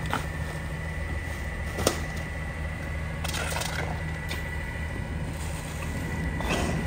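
Rear loader garbage truck idling with a steady low hum and a constant high tone, while bags of trash are tossed into the hopper: a sharp knock about two seconds in and rustling of plastic bags around the middle and near the end.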